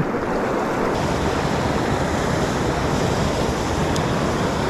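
Small mountain river running steadily, a constant even rush of flowing water.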